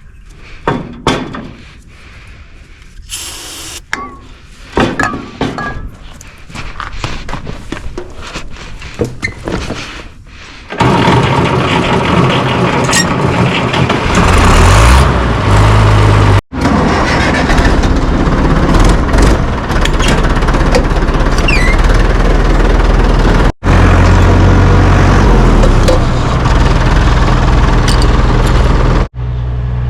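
Combine's diesel engine comes in about a third of the way through and runs loudly with a deep rumble, after a stretch of scattered knocks and clicks.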